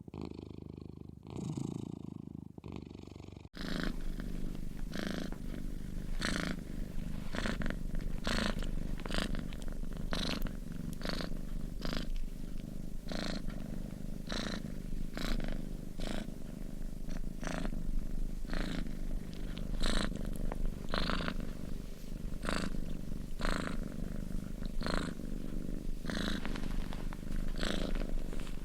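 A sleeping cat making a low rumbling sound with each breath, snoring or purring. It starts as soft separate breaths, then changes abruptly a few seconds in to a continuous rumble with short ticks about once a second.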